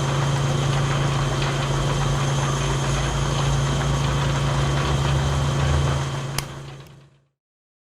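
Engine idling with a steady low hum and rough rumble, then a click a little past six seconds in before the sound fades out to silence.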